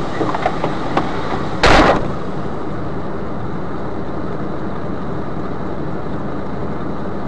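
Steady vehicle rumble heard from inside the cab of a stopped vehicle, with a few light clicks in the first second and one short, loud burst of noise about two seconds in.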